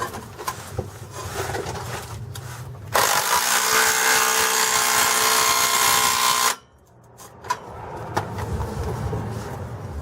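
DeWalt 3/8-inch impact wrench running for about three and a half seconds as it tightens the exhaust slip-fit clamp nut, starting about three seconds in and cutting off suddenly. Light clicks and tool handling come before it.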